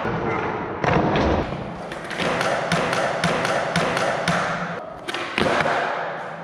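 Skateboard wheels rolling over a concrete floor, with repeated clicks. Board pops and landings thud about a second in and again about five and a half seconds in.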